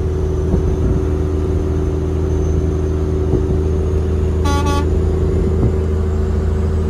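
Old Detroit Diesel truck engine running steadily at highway cruise, heard inside the cab. A short horn blast sounds for about half a second, about four and a half seconds in.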